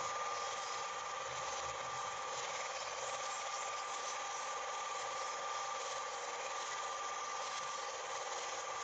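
Film projector running: a steady mechanical whirr with a constant high tone over it.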